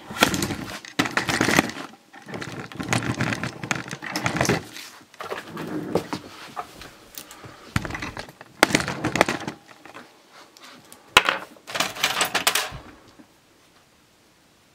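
Handling noise as the camera is picked up and repositioned close to the microphone: irregular bursts of knocks, rubbing and rattling, with a sharp click about 11 seconds in, going quiet near the end.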